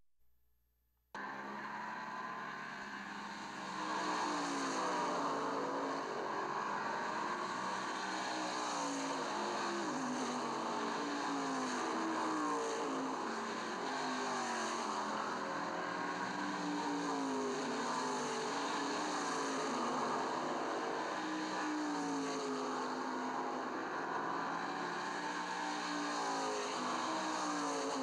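Racing car engines accelerating hard, the pitch climbing and dropping back every couple of seconds as they shift up through the gears; this is sound laid over the film afterwards, not the filmed cars themselves. The sound cuts out for about a second at the start, then returns and grows louder a few seconds in.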